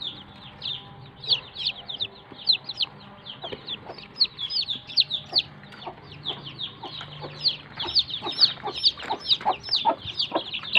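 Newly hatched chicks peeping: a rapid, unbroken string of high, falling peeps, several a second, growing louder in the second half.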